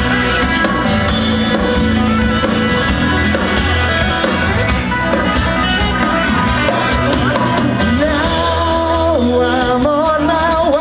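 Live country band playing with electric guitars, bass and drums, loud and continuous. A singing voice comes in about eight seconds in.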